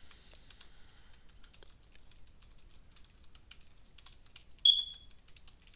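Typing on a computer keyboard: a fast, irregular run of light key clicks. About three-quarters of the way through comes one much louder, sharp sound with a brief high ring that dies away quickly.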